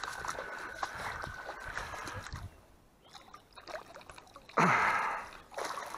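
Splashing of a carp shot with a bowfishing arrow as it is pulled through the shallow water by the line, with a louder burst of splashing about five seconds in as it is lifted out on the arrow.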